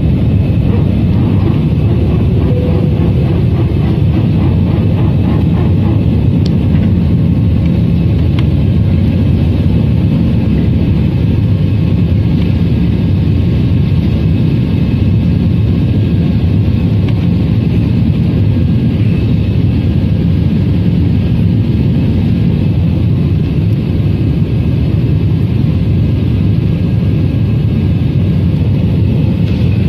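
Airbus jetliner cabin noise during the climb after takeoff: the jet engines and the rushing air make a steady, loud, low roar, heard from a window seat over the wing.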